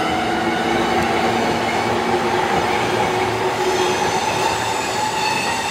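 Train hauled by an EF64 electric locomotive rolling out of a station: a steady rumble of wheels on the rails, with several steady squealing tones over it.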